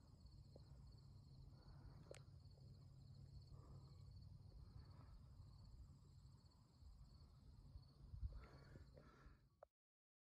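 Near silence: faint insects chirring in a steady pulsed high trill over a low outdoor rumble, with a few small noises near the end, then the sound cuts off suddenly.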